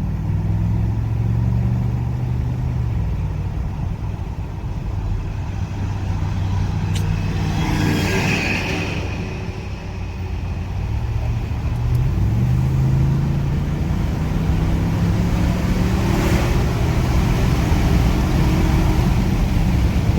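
Ford 7.3-litre gas V8 of an F-250 Super Duty pickup running at a steady cruise, then pulling hard in a rolling acceleration from about 40 mph, its note climbing steadily through the second half.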